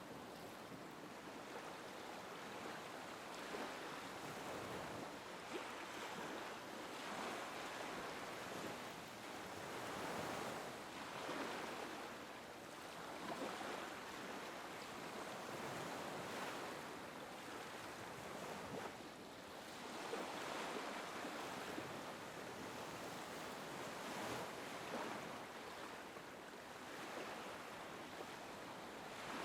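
Small waves lapping on a beach, a steady wash of surf that swells and eases every few seconds as each wave comes in and draws back.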